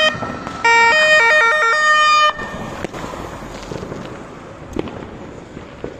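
Police car siren sounding in loud short blasts of stepped, jumping tones, breaking off a little over two seconds in. Then street noise with a few scattered firework bangs.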